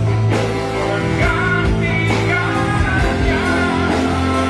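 A band playing a slow love-song ballad, with a singer drawing out the phrase "menggantikannya" near the end over sustained bass notes.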